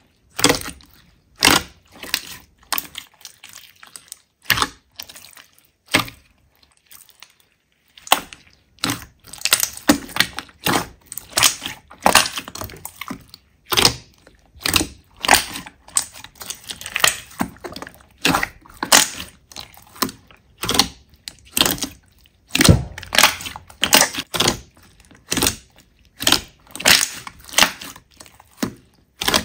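Slime being pressed and squeezed by hand, giving sharp crackling pops and clicks as air pockets burst. The pops come sparsely at first, pause for a moment, then pick up into a quick, uneven run of one or two a second.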